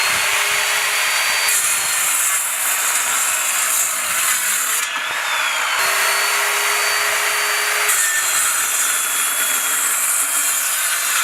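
A 1500 W 7-1/4-inch circular saw running and cutting through wood. The motor's steady whine sits under the loud cutting noise, which shifts in level a few times as the blade works through the stock.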